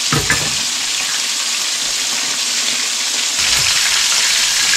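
Thick chunks of crappie sizzling in a pan of hot frying grease, a steady hiss that grows a little louder about three and a half seconds in.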